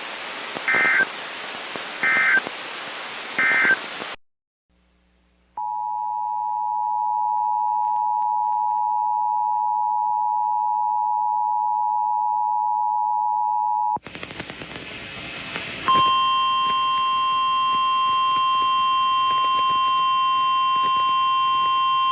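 Emergency Alert System broadcast audio. Three short data bursts end the previous alert over static, about a second and a half apart. After a brief silence the EAS two-tone attention signal sounds steadily for about eight seconds. A moment of static follows, then the single steady alert tone of NOAA Weather Radio starts and holds.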